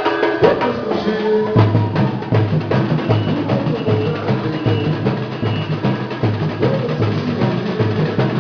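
Batucada percussion group playing a driving drum rhythm, bass drums and snares. The low drum beat comes in about a second and a half in and repeats about three times a second.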